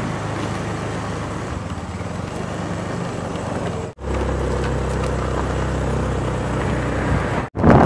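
Motorcycle engine running steadily while riding along a road, with road and wind noise. The sound breaks off abruptly about four seconds in and again near the end, where the recording is cut.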